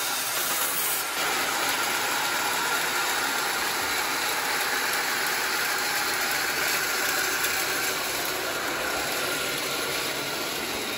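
Horizontal band sawmill driven by a 4 HP electric motor running steadily, its band blade cutting through a teak log with an even, unbroken noise.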